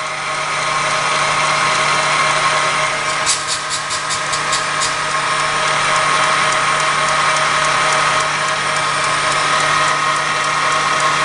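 Valve seat cutting machine running steadily, its spindle turning a modified 20-degree cutter that relieves the edge of a V8 cylinder head's combustion chamber around the valve seat. A short run of quick ticks comes about three to five seconds in.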